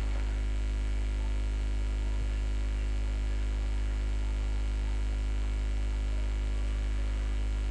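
Steady electrical mains hum: a low drone with a thin buzz of overtones above it, unchanging in level.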